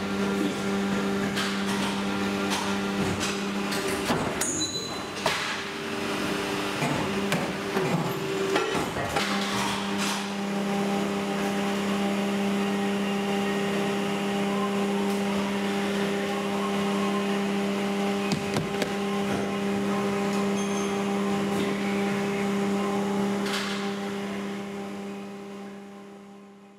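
JSW 400-tonne hydraulic injection moulding machine running through its moulding cycle: a steady hum with scattered clanks, knocks and short bursts of hiss. The hum drops away about three seconds in and returns about nine seconds in, and the sound fades out near the end.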